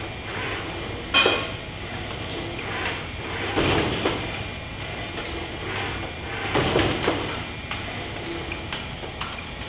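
A 4-metre biped humanoid robot side-stepping, its feet coming down heavily on the concrete floor three times, about every two and a half to three seconds; the first footfall is the sharpest and loudest. A faint steady hum runs underneath.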